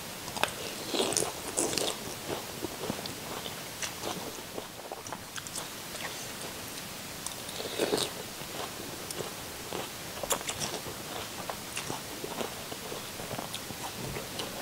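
Close-miked eating: a woman slurping up rice noodles and chewing with her mouth, the loudest slurps about a second in and again around eight seconds in, with small wet mouth clicks between.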